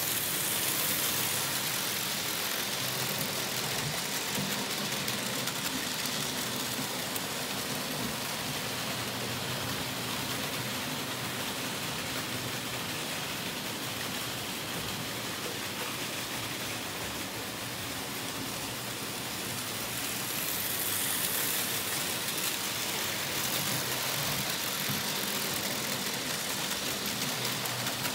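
Märklin H0 model trains running on M-Gleis metal track: a steady rattle of wheels and motors on the hollow pressed-steel track. It grows louder and brighter as a train passes close at the start and again about twenty seconds in.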